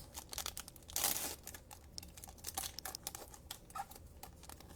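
A trading card pack's foil wrapper being torn open and crinkled: a louder tear about a second in, then scattered crackles.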